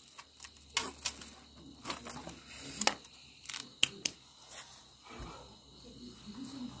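A knife cutting and prying at a charred coconut shell on a foil-lined plate, giving a few scattered sharp clicks with light scraping and foil rustling between.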